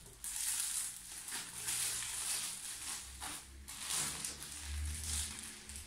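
Plastic mailer bags crinkling and rustling in surges as they are picked up, pressed and slid across a table.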